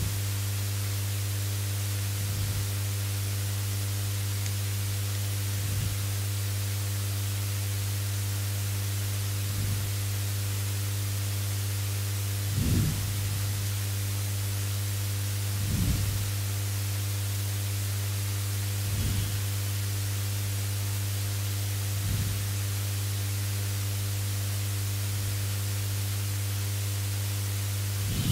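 Steady electrical mains hum with hiss from a headset microphone's recording chain, broken by soft low bumps about every three seconds.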